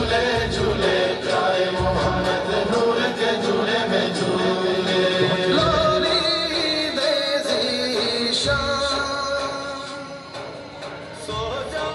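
Devotional vocal music: several voices chanting in long held notes over irregular low drum beats. It grows quieter near the end.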